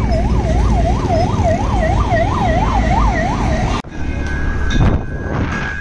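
A fast yelping siren, its pitch sweeping up and down about three times a second, over a low rumble. It cuts off abruptly nearly four seconds in, followed by a steady high tone.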